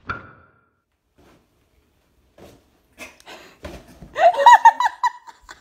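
Mostly quiet for about four seconds with a few faint knocks and rustles, then a loud burst of a person's laughter lasting about a second.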